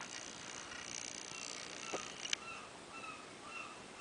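Radio-controlled wall clock's quartz movement fast-advancing its hands as it sets itself to the time signal. A faint high whine stops with a click about two and a half seconds in, followed by short high chirps about twice a second.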